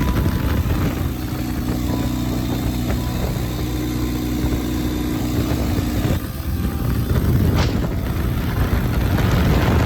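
Ural motorcycle's flat-twin engine running steadily, turning rougher and noisier about six seconds in.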